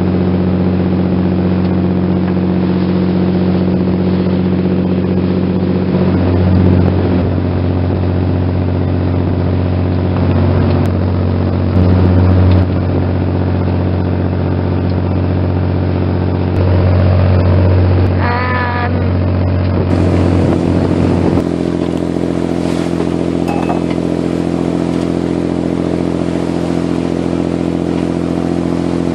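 A motorboat's inboard diesel engine running steadily at cruising speed, heard from aboard, with a brief wavering higher tone about two-thirds of the way in.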